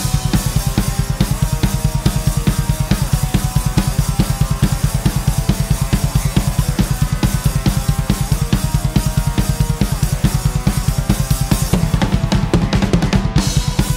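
Drum kit and electric guitar playing heavy metal together: a rapid, even kick-drum pattern with snare and cymbals, under a guitar riff of held, changing notes.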